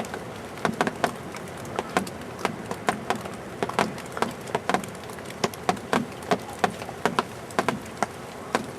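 Snow driven by a blizzard wind striking a surface close to the microphone: an irregular run of sharp ticks, several a second, over a steady hiss.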